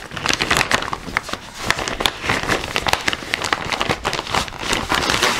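Clear plastic packaging of a cross-stitch kit crinkling and crackling as it is opened and handled, a dense run of small crackles throughout.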